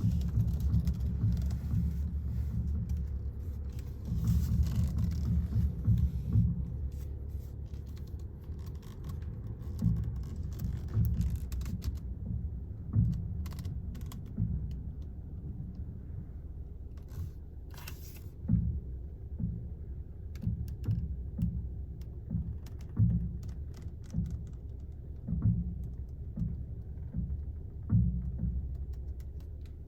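Low pops from a 2016 Volkswagen Jetta as its steering wheel is turned, coming every second or two in the second half, over a steady low rumble. The pops are the fault noise the car makes when steering; the cause is not identified.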